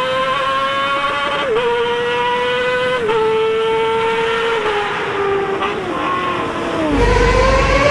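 Kawasaki ZX-25R's bored-up 300cc inline-four through an open Toce race exhaust, screaming at high revs inside a road tunnel: two quick upshifts about one and a half and three seconds in, the pitch dipping at each, then the revs falling steadily as the throttle closes. Near the end the sound changes abruptly to the engine revving up again with a deep rumble.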